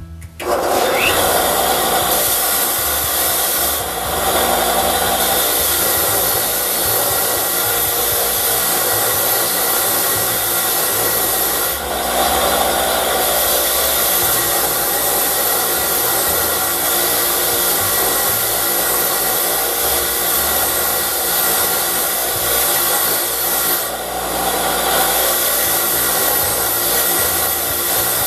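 Bench grinder motor switching on and running, with a rusty steel part from an antique Millers Falls breast drill held against its wire wheel, a steady scratchy brushing that strips off corrosion. The brushing eases briefly a few times as the part is moved.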